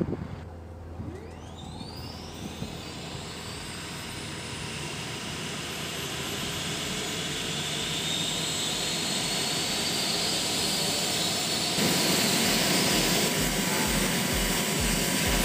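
Gulfstream G200 turbofan engine spooling up during start: a whine that climbs steeply in pitch over the first couple of seconds and then settles into a steady high whine, over a rush that keeps growing louder.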